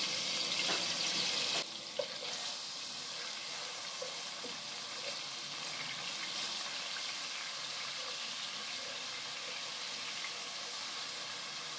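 Hot oil sizzling in an aluminium pot with garlic-ginger paste and whole spices frying in it, stirred with a slotted spatula. The sizzle is louder for the first second and a half, then settles to a softer, steady hiss with a few faint ticks.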